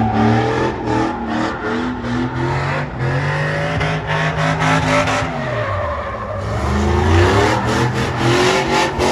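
A vehicle drifting: its engine revving up and down under hard throttle while the tires squeal and skid.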